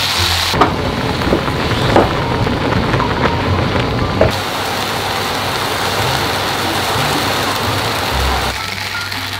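Food sizzling in frying pans, a steady hiss with a few sharp clicks of utensils against the pan.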